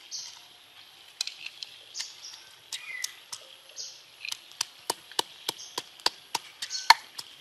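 Wooden pestle pounding garlic and red chillies in a wooden mortar. A few scattered knocks come first, then steady knocks at about three a second through the second half.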